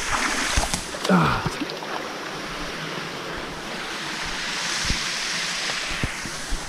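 Waterfall and stream water rushing steadily, with a few knocks from feet and hands on the rocks and a short falling vocal sound about a second in.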